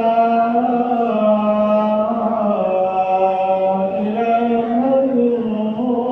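A man's voice chanting Islamic prayer recitation in long, held notes that slowly waver and glide in pitch, without breaks.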